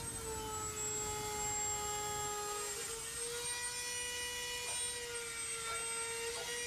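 Dremel rotary tool running at high speed with a steady whine, drilling into the ends of cracks in a camper ceiling to stop them spreading. Its pitch sags slightly for a couple of seconds early on as the bit bears into the material, then comes back up.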